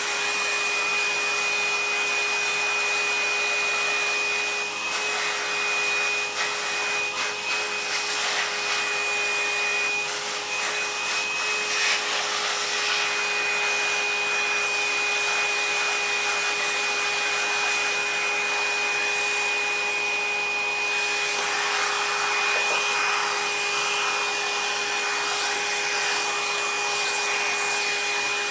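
Vacuum cleaner motor running steadily with a steady high whine. Rough scraping and rubbing noises come and go over it.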